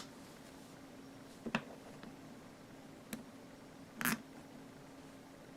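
A few separate small clicks and taps of a screwdriver and parts on an airsoft AEG gearbox shell being screwed back together, the loudest about four seconds in, over a faint steady hum.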